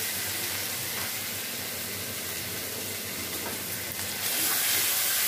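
Ground onion-and-spice masala paste frying in oil in a kadhai over a low gas flame, a steady sizzle that grows louder about four seconds in.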